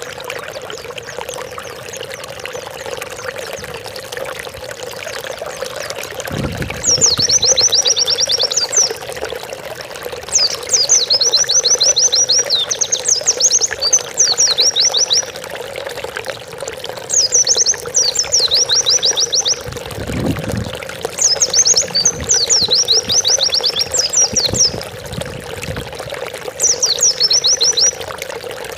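White-eye (pleci) singing: about seven quick, high trilling phrases of around two seconds each, starting about seven seconds in, over a steady sound of running water.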